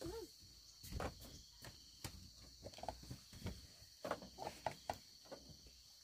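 Light, scattered knocks and clacks of long hollow cane poles being handled and knocked against one another, about a dozen, some in quick pairs. A steady high chirring of insects runs behind them.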